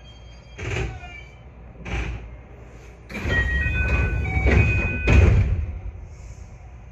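JR 221 series train's doors working at a station stop: two knocks, then about two and a half seconds of air hiss and clunking with high squealing tones, ending in a heavy thud as the doors shut.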